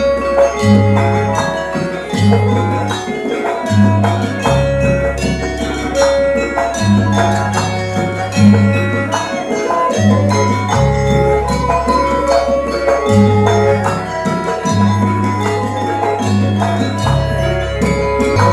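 Traditional Javanese gamelan music: metallophones ring out a melody over repeated deep, long-held low notes, with light percussion.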